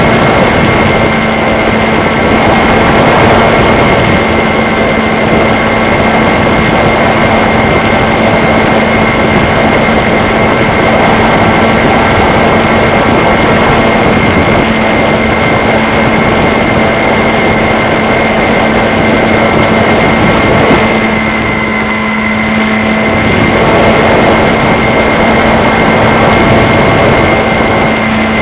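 RC model plane's motor and propeller running at steady throttle, a constant whine over a loud rushing noise, easing off briefly about 21 seconds in before coming back.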